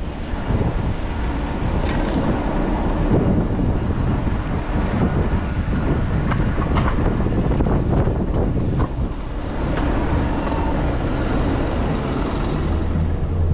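Steady low rumble of city traffic and wind buffeting an action-camera microphone while riding an e-bike, with a handful of sharp clicks and rattles scattered through.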